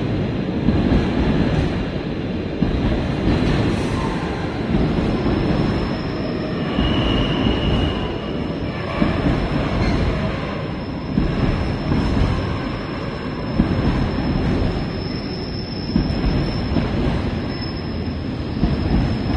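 Loaded container wagons of a freight train rolling steadily past, with a constant rumble of wheels on rail. A short high squeal comes in about seven seconds in, and a thinner, higher squeal sets in from about fifteen seconds.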